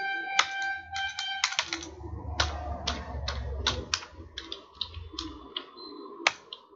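Computer keyboard keys clicking in irregular runs as a line of code is typed and corrected, over a low background rumble.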